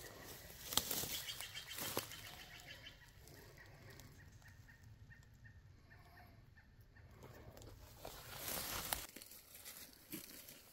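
Rustling and footsteps through brush and undergrowth, with a short, rapid rattling animal call about a second in.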